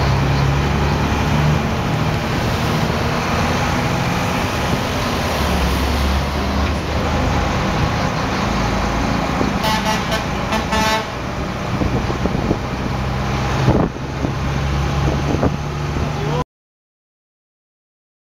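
Street traffic heard from a moving vehicle: steady engine hum and road rumble. A vehicle horn gives a few short honks about ten seconds in. The sound cuts out abruptly to silence about two seconds before the end.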